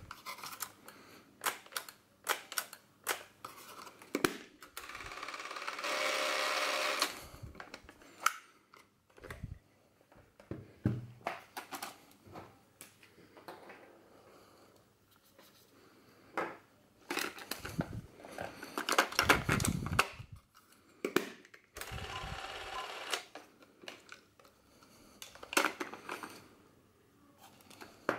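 Handling noises from a Revue Cockpit Sound 800 Super 8 camera and a Super 8 film cartridge: scattered clicks, knocks and rustling as the film compartment door is worked and the cartridge is handled. A short steady motor whirr runs for about a second and a half, about six seconds in.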